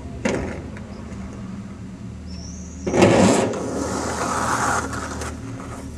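Skateboard: a sharp clack near the start, then about three seconds in a loud rush of the wheels rolling that lasts about two seconds before easing off.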